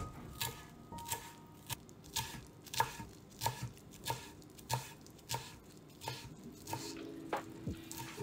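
Chef's knife chopping fresh flat-leaf parsley on an end-grain wooden cutting board: a steady run of short strokes of the blade on the wood, a little under two a second.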